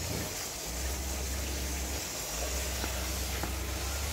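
Wind blowing on the microphone: a steady rushing hiss with a low, uneven buffeting rumble underneath.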